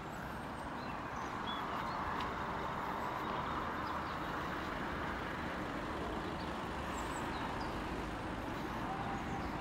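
Outdoor street ambience: a steady wash of traffic noise that swells over a few seconds as a vehicle passes, with a few faint bird chirps.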